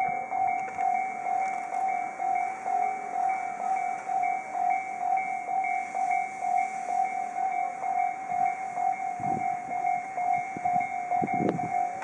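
Japanese railroad crossing warning sounder ringing a steady, repeated electronic ding, a little over two a second, as the crossing closes for an approaching train. The crossing's sounders are known to ring out of step with each other. Low rumbles come in about nine and eleven seconds in.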